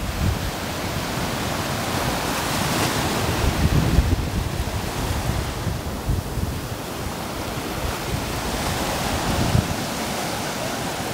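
Sea surf breaking and washing up the beach, swelling louder a few seconds in and easing again, with wind buffeting the microphone.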